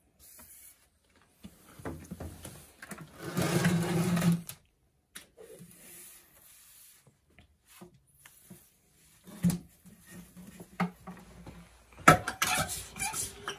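Hand-pumped compressed-air sprayer hissing as insecticide is sprayed from its wand, loudest in a burst of about a second and a half a few seconds in. Light handling noise and clicks follow, with a cluster of sharp wooden knocks near the end as the furniture is moved.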